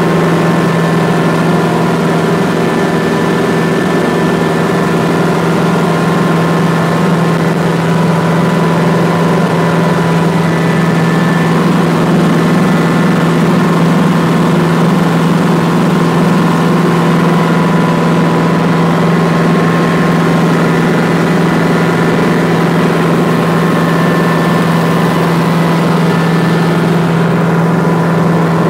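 Schweizer 300CBi helicopter in cruise flight, heard from inside the cockpit: its four-cylinder Lycoming piston engine and rotors drone steadily at constant power. A deep hum carries faint higher whining tones above it.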